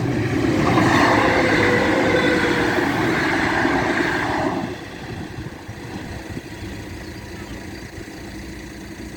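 A train passing over a level crossing, loud for about four and a half seconds and then dropping away sharply, leaving a low steady rumble of road traffic.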